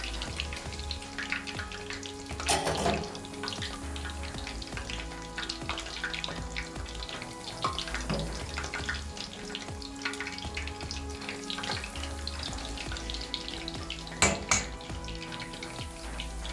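Battered chicken drumsticks frying in hot oil: a steady, dense crackling sizzle, with two louder sharp crackles, one about two and a half seconds in and one near the end.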